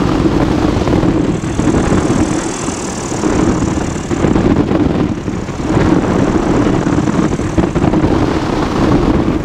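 Flexwing microlight trike gliding in on final approach with its engine throttled back to idle for a practice engine failure: a steady drone from the idling engine and propeller under a gusty rush of airflow over the airframe-mounted microphone.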